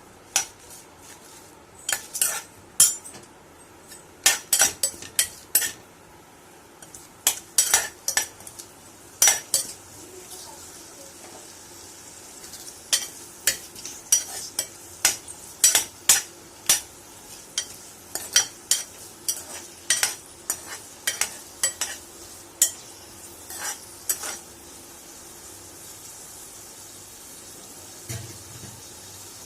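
Spoon stirring and knocking against a pan while ginger and thoothuvalai leaves sauté in ghee, over a steady sizzle. The clinks come in quick clusters and stop about three-quarters of the way through, leaving the sizzle on its own.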